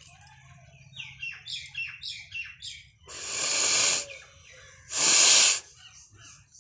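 A bird chirping, about six quick chirps that fall in pitch, then two loud breathy blasts of air, the first swelling for about a second and the second shorter and louder: forceful blowing through the nose.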